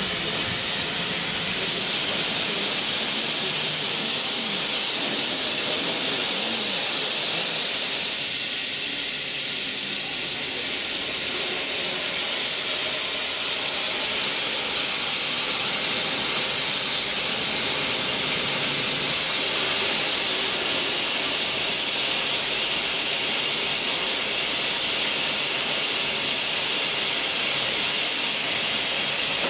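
Steam hissing steadily from standing steam locomotives, a constant hiss with no chuffing.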